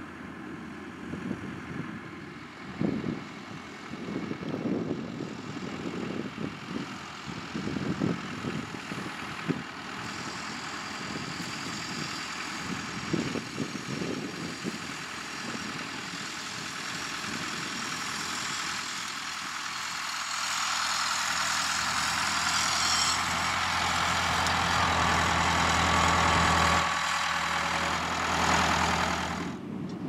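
Tractor engines running as tractors work a hayfield with a rake and a baler. There is an uneven low rumble at first, then a steadier engine sound that grows louder past the middle and breaks off abruptly near the end.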